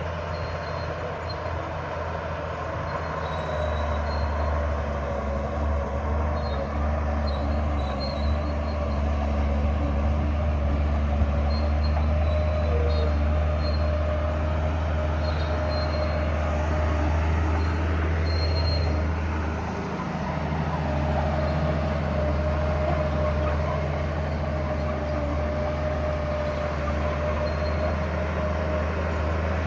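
Komatsu bulldozer's diesel engine running steadily under load while pushing stone, with a steady high whine and light clanking from the tracks. The engine eases off briefly about two-thirds of the way through.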